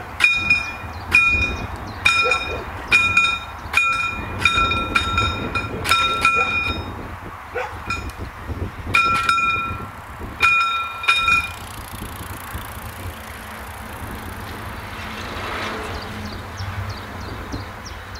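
Warning bell (předzváněč) of PZM1 mechanically operated level-crossing barriers ringing in uneven strikes, about two a second, as the barriers are lowered. It stops about eleven seconds in, leaving a faint low rumble.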